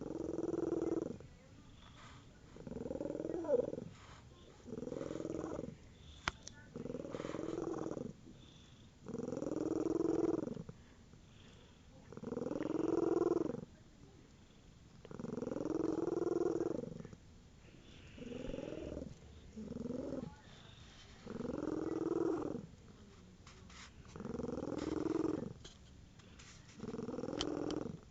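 Domestic cat purring under a blanket, the purr coming in regular bursts of about a second, one every two seconds or so, with each breath.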